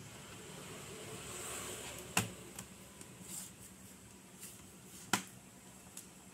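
Plastic bottom cover of an HP 14s laptop being pressed back onto the chassis, its clips snapping into place: two sharp clicks about three seconds apart, with a few lighter ticks.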